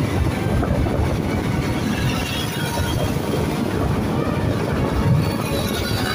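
Steady rush of wind and road noise from riding a motorbike at speed.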